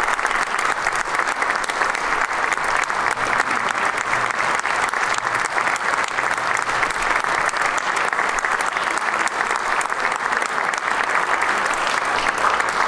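Audience applauding steadily: a dense, even wash of clapping.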